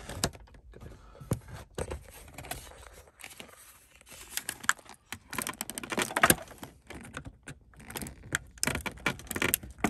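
Irregular hard-plastic clicks and rattles as fingers work the stiff release tab of a wiring-harness connector under a car's center console, with busier spells of clicking about halfway through and near the end.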